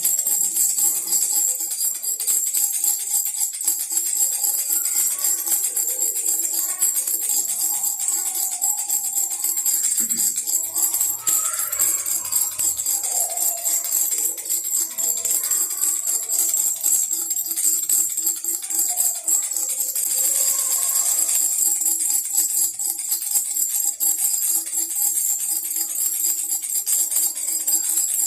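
Baby rattle shaken continuously, a fast jingling rattle, with a musical backing that carries a steady tone and a wavering melody through the middle.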